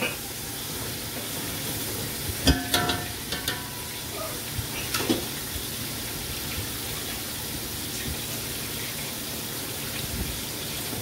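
Sliced onions sizzling in hot oil in an aluminium pot, a steady hiss as they are lightly fried. About two and a half seconds in a single metal clank rings out, followed by a few lighter taps.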